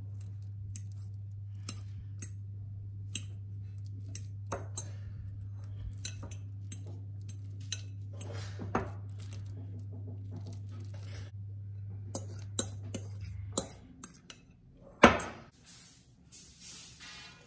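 Metal fork clinking and scraping against a glass bowl in irregular taps while mashing ripe banana pieces, over a steady low hum that stops about three-quarters of the way through. A single louder clack comes near the end.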